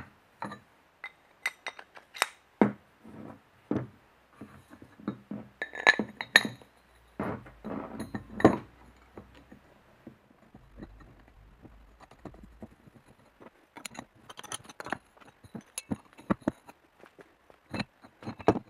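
Steel parts clinking and knocking against each other and the workbench as a hexagonal steel plate and a steel bushing are handled and set down: irregular sharp metallic clinks, a few louder ones near the middle.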